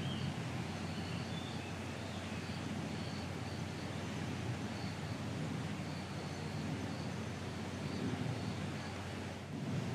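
Outdoor ambience: a steady low rumble and hiss, with faint, short, high chirps repeating every half second or so throughout and a few lower chirps in the first two seconds.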